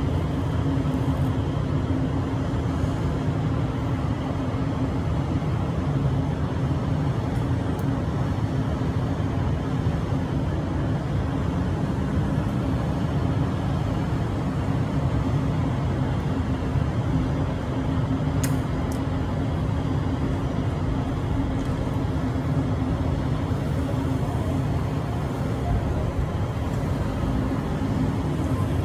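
Steady low rumble of city street traffic with a constant low hum under it, unchanging in level.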